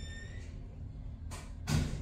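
A brief high squeak at the very start, then two short breathy puffs near the end, the second louder, over a steady low room hum.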